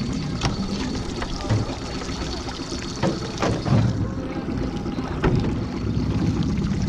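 A 15 hp Evinrude outboard running steadily at low speed, with scattered sharp knocks and thumps, the loudest a few seconds in.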